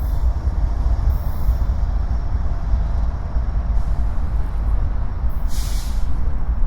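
Empty coal train of hopper cars rolling past at slowing speed: a steady, loud low rumble of wheels on rail, with a brief high hiss about five and a half seconds in.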